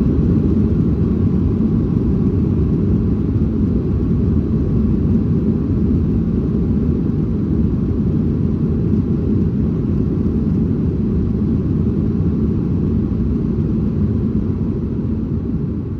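Cabin noise of a Boeing 737 MAX 8 with CFM LEAP-1B engines, heard from a window seat during landing: a steady deep rumble of engines and airflow that slowly eases off.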